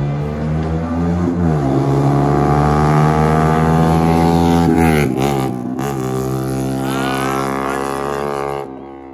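Yamaha R15 V3's single-cylinder engine through an SC Project titanium full-system exhaust, accelerating past with its pitch climbing steadily. The pitch drops sharply about five seconds in, holds steady, and fades near the end.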